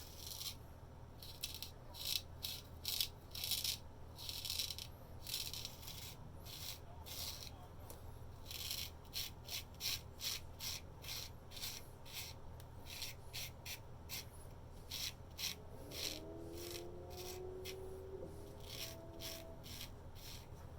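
Antique C.Mon straight razor shaving through lathered hair in a series of short, dry scraping strokes, about one or two a second with brief pauses between them.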